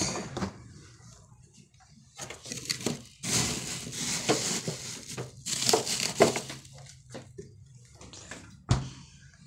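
Rustling and crinkling as things are handled inside a refrigerator, in two long spells in the middle, with a single sharp knock near the end.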